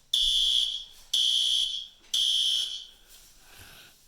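Fire alarm horns sounding the temporal-three evacuation pattern: three loud, high-pitched blasts about a second apart, then a pause. The system is in alarm from a manual pull station being pulled during a test.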